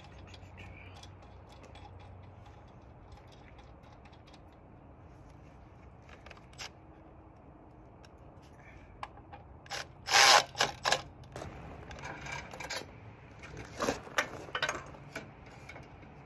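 Hand tools working on a mini bike's metal frame and parts: quiet at first, then from about nine seconds in a run of metal clanks and clicks, the loudest about ten seconds in, with short bursts of rapid clicking near the end.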